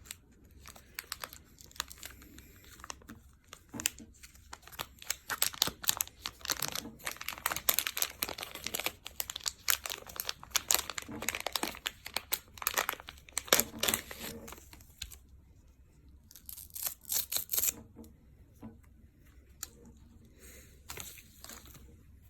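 Crinkling and ripping handling noise in quick bursts, dense for about fifteen seconds, then quieter with two shorter bursts near the end.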